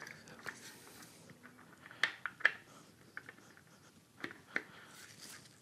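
Light metallic clicks and taps as hydraulic lifters in their lifter tray are handled and seated into the lifter bores of an LS1 V8 block. There are a few sharp ticks, a cluster about two seconds in and two more a little past four seconds.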